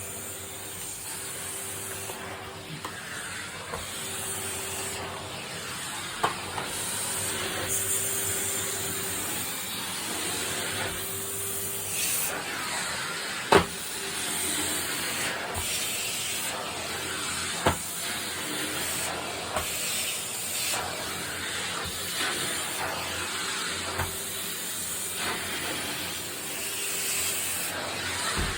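Vacuum cleaner running on a carpet at its higher suction setting, a steady hiss with a faint hum that swells and fades as it is pushed back and forth. A few sharp clicks stand out, the loudest about halfway through.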